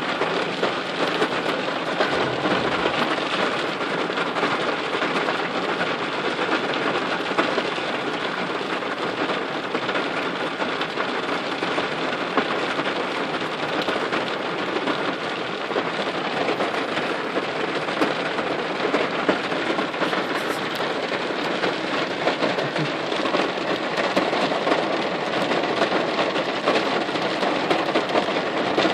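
Heavy rain beating steadily on window glass, a dense patter of countless drops heard from the inside.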